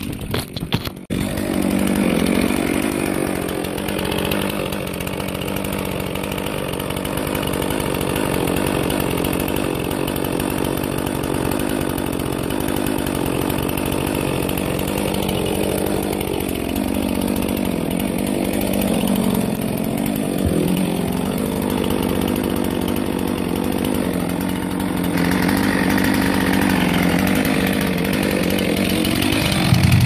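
Chainsaw running steadily, its pitch shifting slightly a few times. A few knocks in the first second.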